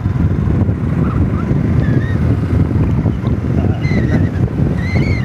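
Loud, steady low rumble of wind buffeting the microphone outdoors. About four seconds in, high, thin, warbling whistles join it.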